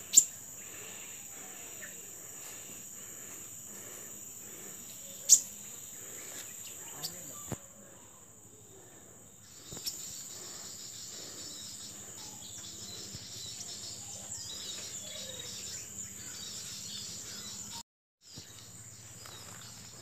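Steady high-pitched insect drone, with faint bird chirps. A few sharp clicks come through, the loudest about five seconds in, and the drone breaks off for about two seconds near the middle.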